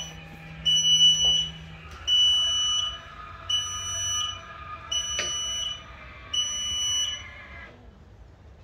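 E-stopp electronic parking brake engaging, its beeper sounding a high steady beep about every second and a half, five times, over a faint steady whine from the actuator pulling on the rear brakes. Both stop together near the end, with the brake set.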